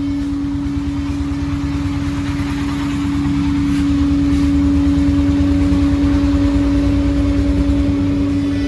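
Vapor-blasting equipment running: a steady machine hum over a low pulsing rumble, with a hiss of the blast spray that grows louder about three seconds in.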